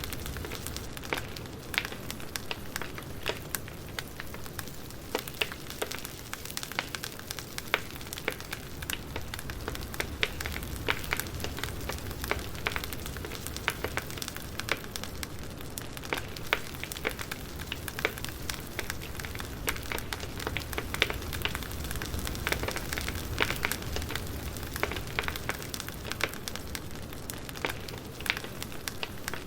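Campfire burning: a steady low rumble of flames with frequent irregular crackles and occasional louder pops of burning wood.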